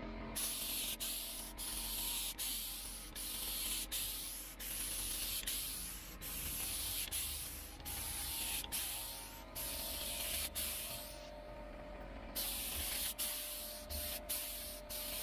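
Compressed-air paint spray gun with a suction-feed cup hissing steadily as it sprays paint onto a fiberglass hull. The hiss stops briefly about eleven seconds in, when the trigger is let off, then resumes.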